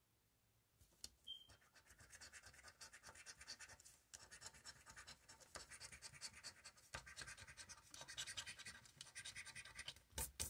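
A coin scraping the latex coating off a paper lottery scratch-off ticket: faint, quick back-and-forth strokes that begin about a second in, with a light tap near the end.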